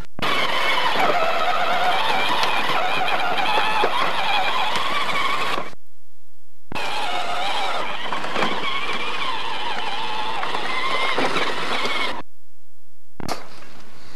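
Electric motor and gears of a battery-powered ride-on toy truck whining as it drives, the pitch wavering. The sound breaks off abruptly twice for about a second each.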